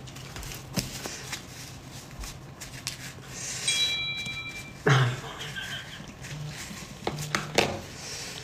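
A person eating instant noodles: soft mouth sounds and small clicks, with one sudden louder sound about five seconds in. A short high electronic beep sounds about four seconds in.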